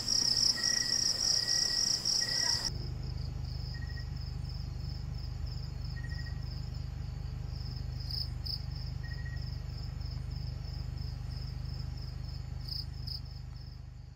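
Crickets chirping in a steady, pulsing high trill, with a second, lower chirp now and then. After about three seconds the trill turns quieter over a low steady hum, and it all fades out at the end.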